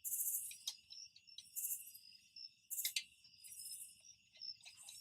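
Crickets and other night insects chirping: a steady high trill with louder, rapidly pulsed bursts about once a second. A few light clicks sound now and then.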